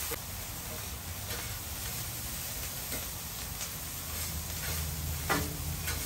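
Fried rice sizzling on a propane flat-top griddle while metal spatulas stir and scrape it, with scattered taps of the spatulas on the steel plate.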